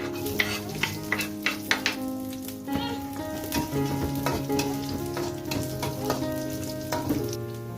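Food sizzling in a frying pan as it is stirred, with many sharp clicks of the utensil against the pan, over soft piano background music.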